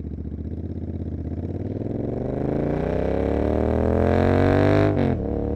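Royal Enfield Continental GT 650's 648 cc parallel-twin, breathing through aftermarket Emgo cafe mufflers, pulling away under acceleration. The exhaust note climbs steadily in pitch and loudness for about five seconds, then drops sharply as the rider shifts up, and runs on steadier at a lower pitch.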